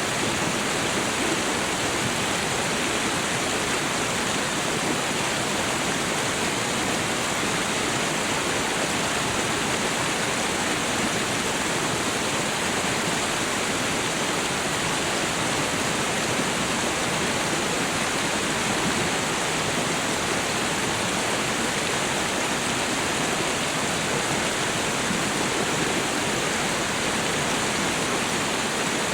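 Meltwater stream running over a small waterfall: a steady, even rush of water with no breaks.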